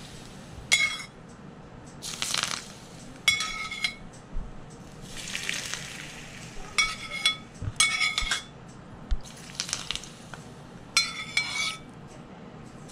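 A metal ladle clinking and scraping in a skillet as it scoops hot peanut oil, alternating with sizzling as the scalding oil is poured over a steamed fish and chopped green onions. The scoop-and-pour repeats about five times.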